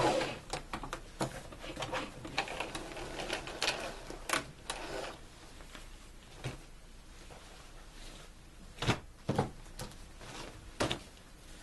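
A sewing machine stops running right at the start, followed by scattered light clicks, taps and fabric rustling as the machine and the denim are handled between seams, with a few sharper knocks about nine and eleven seconds in.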